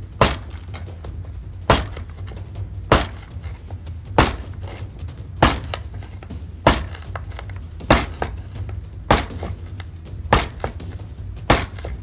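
A folding knife's blade tip stabbed hard into a wooden cutting board over and over, a sharp clack about every 1.2 seconds, ten strikes in all: a test of the tip's strength and of the pivot under torque.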